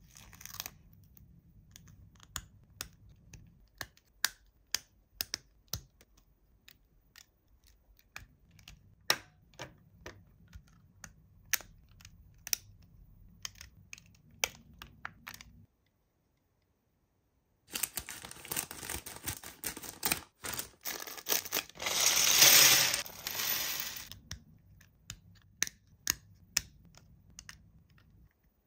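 Toy packaging being handled and opened: scattered light clicks and taps of plastic and cardboard, then, after a short break, several seconds of continuous rustling and crinkling.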